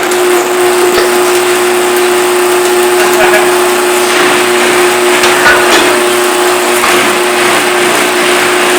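Electric garage door opener running steadily with a constant motor hum as the door travels closed, with small rattles and clicks from the door along its tracks.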